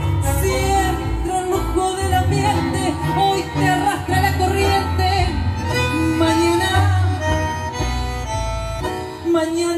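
Live tango played by a sextet: bandoneón, violin, double bass and keyboard, with a woman singing the melody into a microphone.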